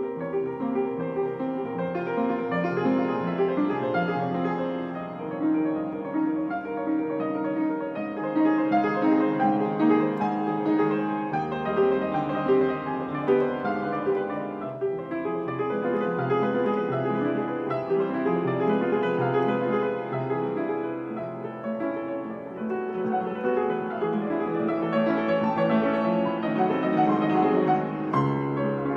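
Solo upright piano playing a continuous stream of notes.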